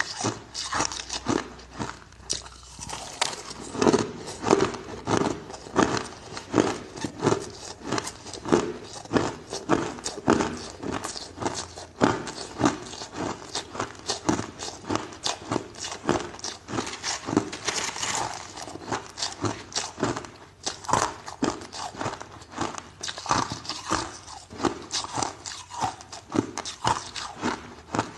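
A person biting and chewing ice, crunching close to the microphone: a dense run of sharp cracks and crunches, several a second.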